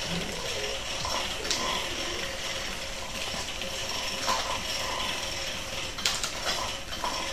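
Electric butterfly cat toy running, its motor and gears giving a steady mechanical whir as the butterfly on its wire circles the base, with a few faint clicks.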